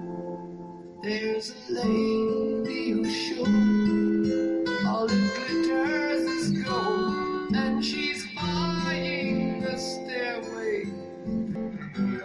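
Acoustic guitar music, strummed and picked, played back on a Bismarck BSX12-A15 active speaker.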